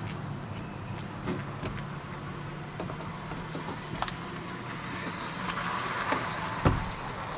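Trim panel being pressed onto a Ford F-150's door: scattered light clicks and knocks as the push-pin clips snap in, a brief scraping rustle, and a sharper knock near the end.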